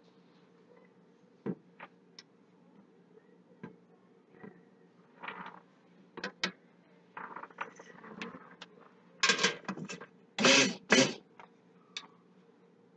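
Scattered clicks and knocks of a stick blender and gloved hands against a stainless steel stockpot, with a few louder rustling, scraping bursts about nine to eleven seconds in.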